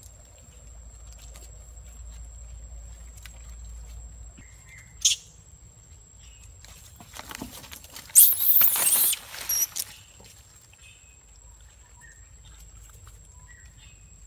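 Macaques in a forest: a short high chirp about five seconds in, then a loud, noisy burst of about two seconds around eight seconds in that ends in two short high squeaks. A faint steady high tone runs underneath.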